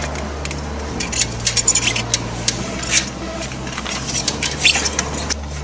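Irregular light clinks and clicks of hand work on a bicycle wheel and tyre, over a steady low hum.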